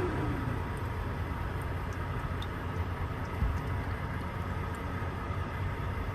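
Steady low engine rumble, like an idling truck, with a few faint high ticks.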